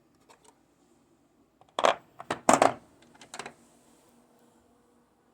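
Metal sockets clinking and clacking as they are handled and set into their slots in a mechanic's tool set case: a few light clicks about half a second in, then a cluster of sharper, louder clacks between about two and three and a half seconds in.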